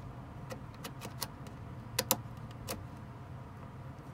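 Scattered small clicks and taps of black plastic NMEA 2000 connectors being handled as the terminating resistor is screwed onto the end of a T-connector, the loudest a close pair about two seconds in, over a steady low hum.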